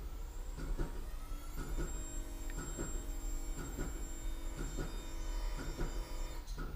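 An electric motor in the Alfa Romeo 4C's transmission whines during a TCU calibration routine. The whine rises in pitch over about a second and a half, holds steady for about four seconds, then stops shortly before the end. Light ticks recur throughout, over a low hum.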